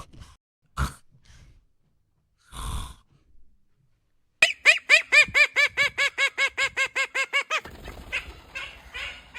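Animal calls: a few short, sharp calls, then a fast run of about eighteen short pitched calls over roughly three seconds, then some fainter calls.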